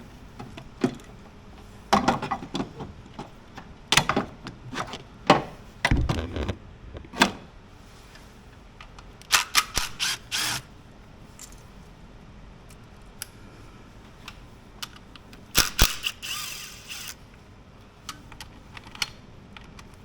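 Hand tools clicking and clinking against metal parts of a car engine as bolts and fittings are worked loose: scattered sharp clicks and knocks with a few short runs of rapid clatter.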